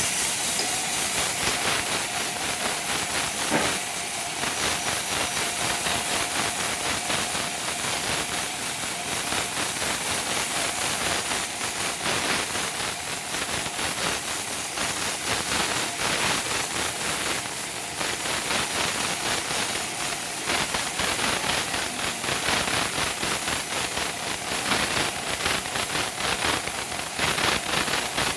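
Sawmill saw cutting through a large log: a loud, steady hissing rasp, with a faint whine in the first few seconds and a single click.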